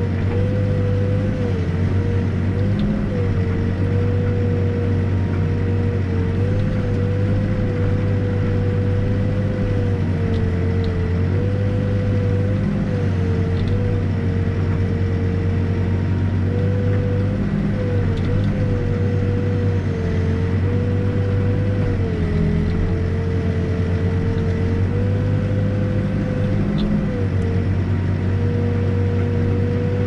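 New Holland backhoe's diesel engine running steadily under digging load, heard from the cab, with a steady whine that dips and wavers in pitch every few seconds as the boom and bucket work.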